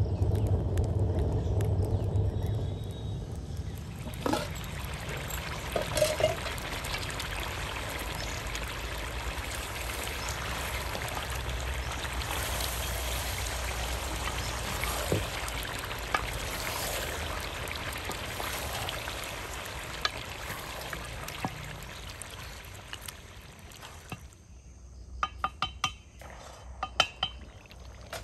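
Liquid poured into a cooking pot in a long steady stream lasting about twenty seconds, followed near the end by a few ringing metal clinks.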